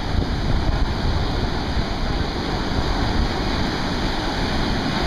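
Surf breaking and washing up a sand beach, a steady rush of water, with wind buffeting the microphone in a low rumble.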